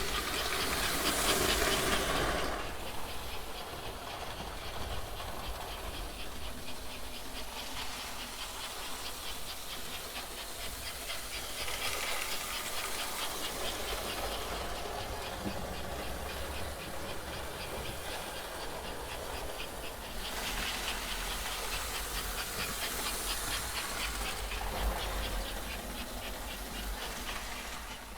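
American Flyer S-gauge 0-6-0 steam switcher running a train around a toy layout: a steady, fast rhythmic hiss and rail clatter over a low hum. It swells louder and fades as the train circles, loudest about a second in, around twelve seconds and from about twenty seconds on.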